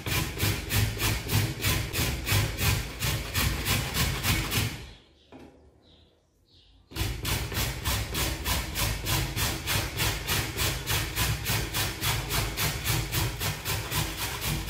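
An avocado seed being grated on a metal box grater: quick, even rasping strokes, about five a second. The strokes break off for about two seconds midway, then resume at the same pace.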